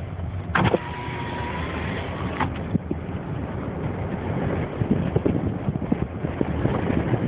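Car driving on a snow-covered highway, heard from inside: steady road and wind noise with frequent small knocks and thumps. Two sharp clicks open it, and a faint steady tone sounds for about two seconds near the start.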